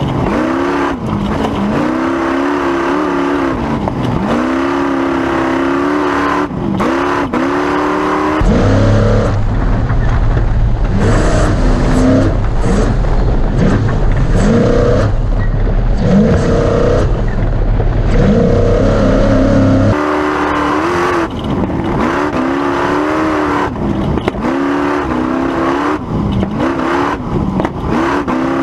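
Class 1450 Ford Ranger off-road race truck engine running hard, its pitch constantly rising and falling as it revs up and down. For about twelve seconds in the middle the sound changes to a steady low drone with a duller engine note, then the rising-and-falling revving returns.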